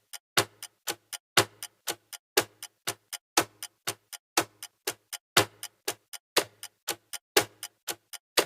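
Ticking clock sound effect, about four ticks a second with a louder tick once a second, as for a quiz countdown timer.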